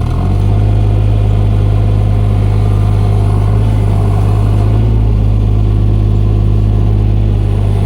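Mini excavator engine running at a steady speed: a loud, even, low drone.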